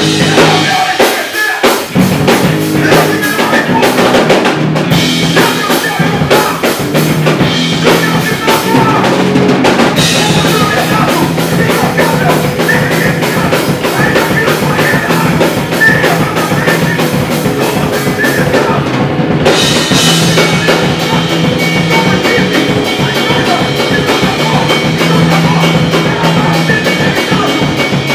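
Live hardcore band playing loudly, with the drum kit to the fore: fast, driving kick and snare beats under the guitars and bass.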